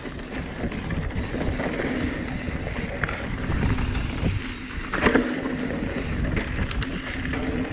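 Mountain bike ridden along a dry dirt trail: tyre noise over dirt and loose debris with the bike's frame and drivetrain rattling and clicking, and a sharper knock about five seconds in as it hits a bump.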